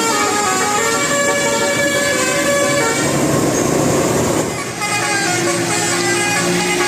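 Bus telolet horn, a Basuri-type multi-trumpet musical horn, playing a tune of held notes that step from pitch to pitch. It breaks off briefly about four and a half seconds in, then the tune goes on.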